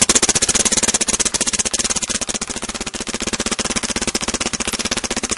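Dangerous Power G3 paintball marker firing a fast, unbroken string of shots, well over ten a second, in its stock board's secret firing mode.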